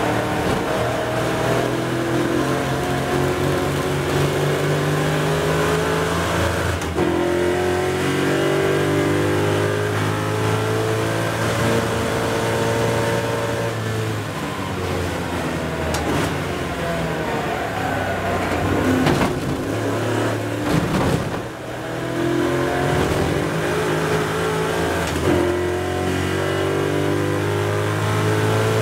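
Race-prepared 1965 Ford Mustang's engine at racing speed, heard from inside the cabin. It pulls hard and rises in pitch through the gears, breaking at each upshift, then drops away under braking with a brief lull about three-quarters of the way through before accelerating again.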